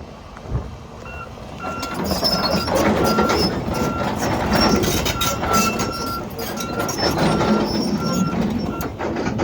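Volvo EC220E excavator's travel alarm beeping in a steady, evenly spaced series of short tones, about two a second, starting about a second in, over the machine's diesel engine and running gear, which grow louder about two seconds in as it moves.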